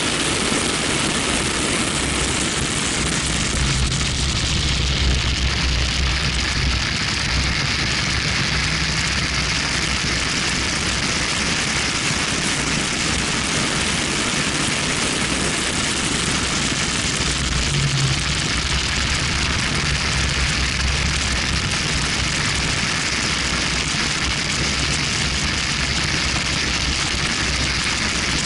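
Heavy wind rush on an outside-mounted action camera on a BMW 1M at track speed, with the car's engine and tyres droning low underneath.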